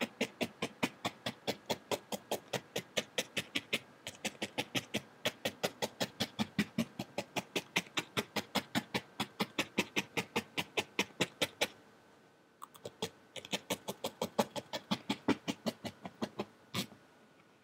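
A felting needle stabbing repeatedly through wool into a foam pad, a sharp click with each stab at about five to six a second. The stabbing pauses briefly about twelve seconds in, then resumes.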